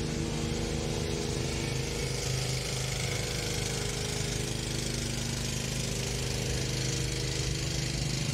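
A motor or engine running steadily: a low, even hum whose pitch holds level.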